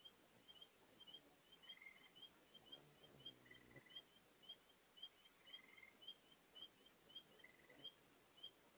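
Faint bird chirps repeating evenly about two to three times a second, with short buzzy notes every second or so, over a steady faint rush from a large spring far below. A brief low hum about three seconds in.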